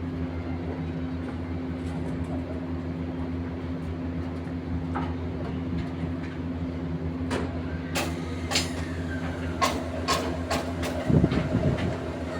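A machine engine running steadily with a low hum, joined in the second half by a series of sharp metallic knocks and clanks.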